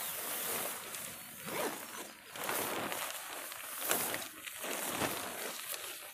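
Nylon rainfly of a dome tent rustling in a series of irregular swishes as it is pulled off and folded over the inner tent.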